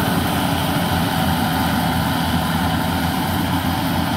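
Yanmar 850 rice combine harvester's diesel engine running steadily as the machine cuts and threshes rice.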